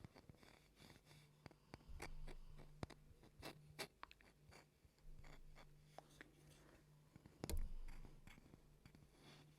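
Faint close-up ASMR trigger sounds: scattered soft clicks and short scratchy strokes over a steady low hum, with a duller thump about three-quarters of the way through.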